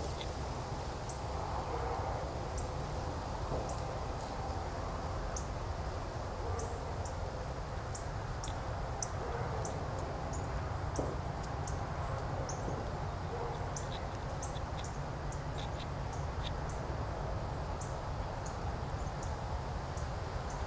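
Outdoor ambience: a steady low rumble with short, high-pitched chirps scattered throughout, a few a second.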